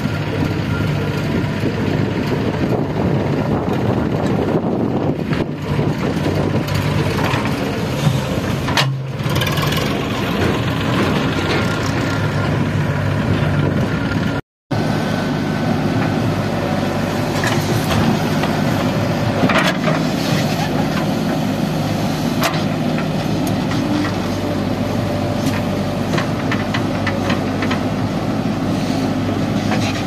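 JCB 3DX backhoe loader's four-cylinder diesel engine running steadily under load while the backhoe digs and dumps earth. Scattered knocks and scrapes come from the bucket and from falling soil and rocks.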